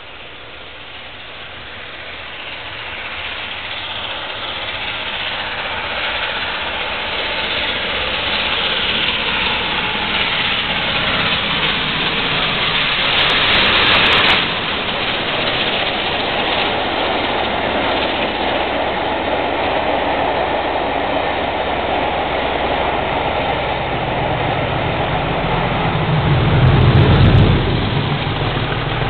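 LNER A4 Pacific steam locomotive 60009 and its train of coaches passing, growing louder as it approaches and loudest as the engine goes by about halfway through. The coaches follow with a steady rolling noise on the rails. Near the end a deep engine drone swells as the diesel locomotive on the rear of the train passes.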